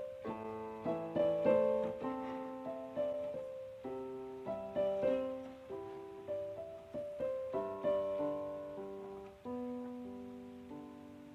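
Piano music: a melody with chords, each note struck and left to ring out.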